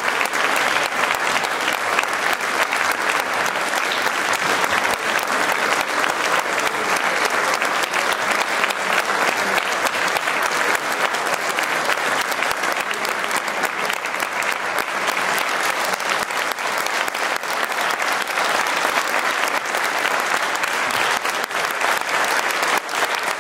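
Crowd applauding steadily: a long, dense run of clapping that keeps an even level throughout, with the people on stage clapping along.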